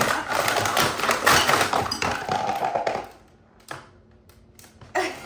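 A plastic toy being pushed along, rattling and clattering for about three seconds, then a few isolated light taps and knocks.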